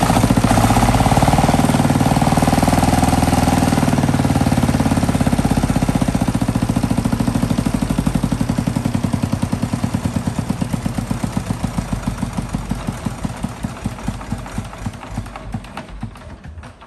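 Single-cylinder diesel engine of a small four-wheel tractor running loud and fast, then slowing: its firing beats spread out and fade as it winds down, with only a few widely spaced beats left near the end.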